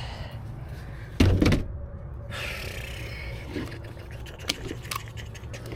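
A loud knock about a second in, followed by rustling and a few light clicks over a steady low hum, as wire and equipment are handled.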